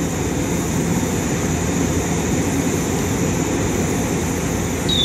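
A 115-series electric train standing at the platform, its onboard equipment running with a steady low hum. A high, steady electronic beep switches on right at the end.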